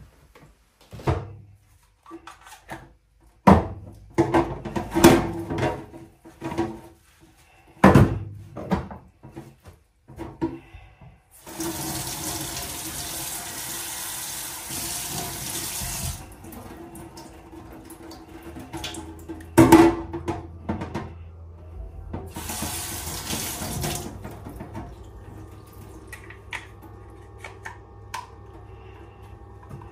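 Kitchen mixer tap running into a stainless steel sink in two spells, a long one of about four seconds and a shorter one later, as the magnetic filter insert is rinsed of the sludge it collected. Scattered knocks and clatter of handling come before, with one loud knock between the two spells.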